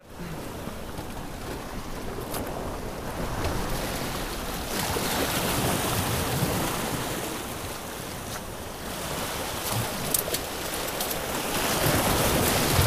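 Sea surf washing and breaking against the granite blocks of a jetty, swelling louder about halfway through and again near the end.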